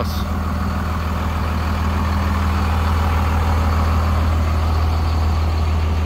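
Heavy vehicle's diesel engine idling steadily: an even, unchanging low hum.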